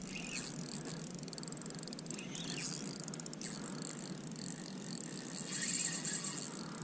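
Spinning reel being wound to retrieve a lure, a faint rhythmic ticking whirr over a low steady hiss, growing a little louder near the end.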